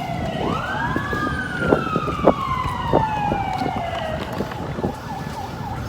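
Emergency-vehicle siren wailing: one wail rises quickly about half a second in, then falls slowly until about four seconds in. Wind buffets the microphone, with a few short thumps.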